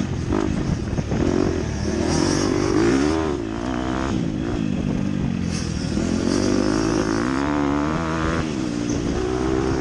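Motocross dirt bike engine heard from on board, revving up and down repeatedly as the rider works the throttle and gears around the track.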